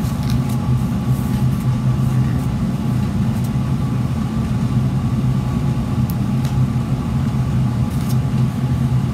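Steady low mechanical hum, even and unchanging, with a few faint light clicks over it.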